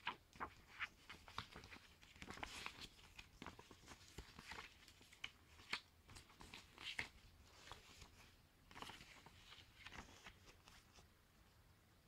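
Faint rustling and crackling of a CD booklet's paper pages being handled and turned, a series of short crackles that die away near the end.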